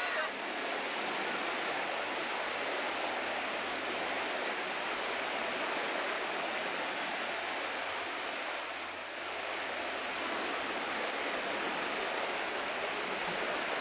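Steady rush of flowing water, dipping briefly about nine seconds in.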